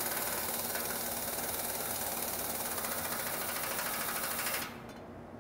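Pneumatic wrench running steadily while fully tightening a bolt, then cutting off near the end.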